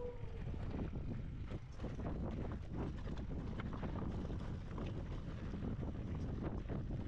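Wind buffeting the microphone with a low steady rumble, overlaid by a busy, irregular stream of clicks and crunches.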